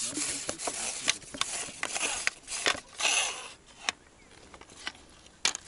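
Handling noises of a side-nod rod and a small hooked fish being brought in by hand: rustling, knocks and clicks, with a short splash-like rush about three seconds in as the fish reaches the surface. A few sharp clicks near the end.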